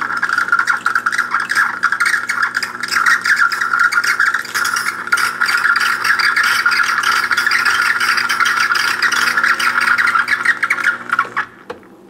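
Gaggia Brera super-automatic espresso machine dispensing hot water through its steam wand into a glass of espresso: a steady hiss of water spurting from the wand over a low machine hum, cutting off about a second before the end.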